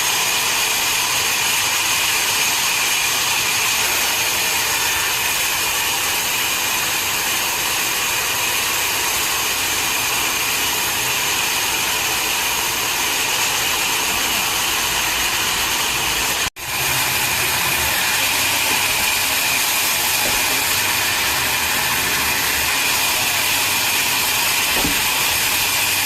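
A wood-sawing machine running steadily with a constant high whine over its noise, cutting off for an instant about two-thirds of the way through.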